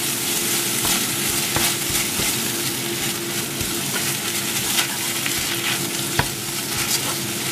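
Spinach, garlic and melting processed cheese sizzling in a frying pan, with wooden chopsticks stirring and tapping against the pan now and then. A steady low hum runs underneath.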